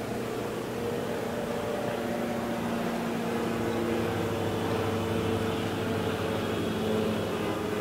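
Light single-engine propeller aircraft flying low overhead, its engine and propeller making a steady drone that grows louder as it comes closer.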